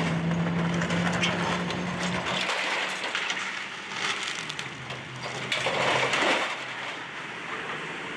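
Excavator tearing down a building: crunching and cracking of breaking debris over the machine's steady engine hum, with the loudest crunches about four and six seconds in. The engine note drops lower a little over two seconds in.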